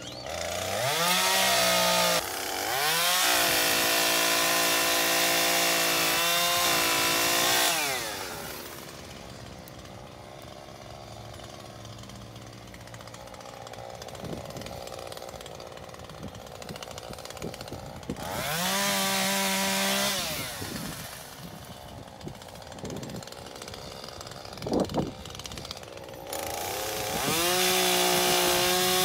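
Chainsaw cutting into a tree trunk: it revs up to full throttle for several seconds, drops back to low running, revs again briefly about two-thirds of the way through, and opens up again near the end.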